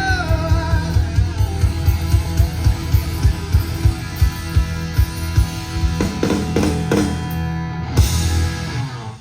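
Rock band playing live: electric guitar, bass and a steady drum beat, with a drum fill about six seconds in and a big closing hit near the end before the sound cuts off.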